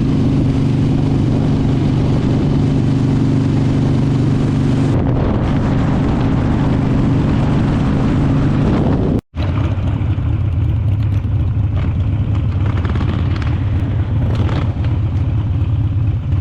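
Motorcycle engine running steadily while riding. It breaks off briefly about nine seconds in, then carries on at a slightly lower note.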